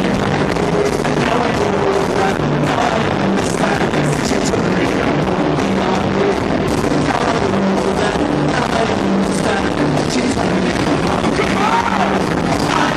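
A two-tone ska band playing a song live, heard steadily and loud from among the audience in a large arena.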